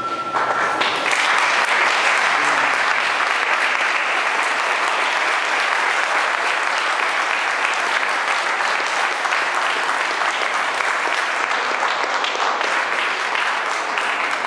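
Spectators applauding steadily, as after a boxing bout. The ring of the boxing bell fades out about a second in.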